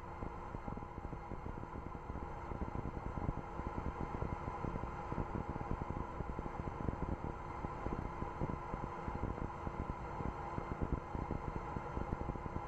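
Open mission-control voice loop between callouts: a steady hiss and hum with faint unchanging tones running under it.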